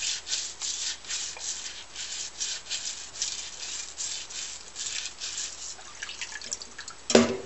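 Coarse scouring pad scrubbing an aluminium Triumph T120 piston in a sink of water, with scratchy strokes about three a second that slow near the end. A single louder knock comes just before the end.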